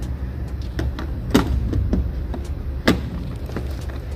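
Sharp clicks and knocks of an EV charging handle being handled and fitted to the car's charge port, two louder knocks about a second and a half apart, over a steady low hum.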